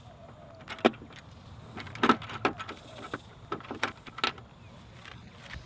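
A quick irregular series of sharp clicks and knocks, about ten in all: plastic scooter bodywork and small screws being handled during work on a Vespa LX rear fender.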